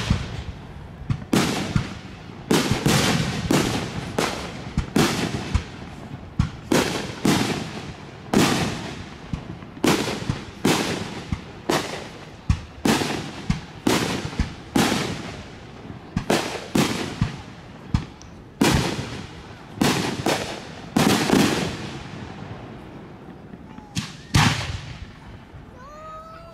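Fireworks display: aerial shells bursting in a steady run of sharp booms, about one a second, each dying away in echo, with a quieter lull a few seconds before the end.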